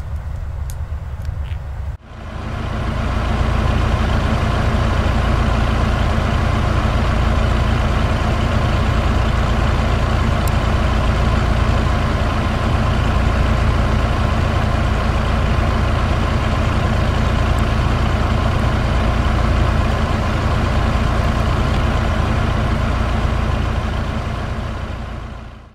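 Heavy truck's diesel engine running at a steady speed. It comes in suddenly about two seconds in and fades out at the end.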